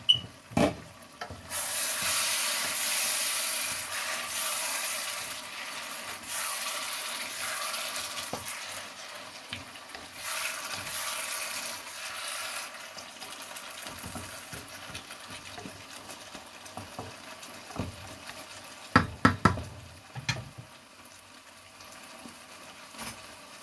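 Butternut squash and tuna curry sizzling and bubbling in an open wok while a wooden spatula stirs through it. The sizzle is loudest for the first half and then dies down; a few sharp knocks come about nineteen seconds in.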